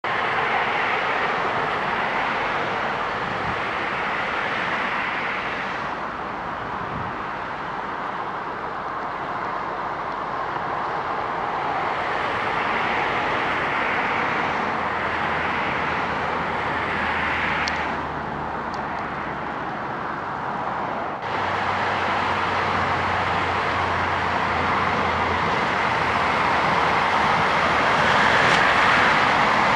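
Heavy diesel road-paving machinery running steadily at an asphalt paving site, a continuous rushing engine noise with a low hum that changes abruptly a few times.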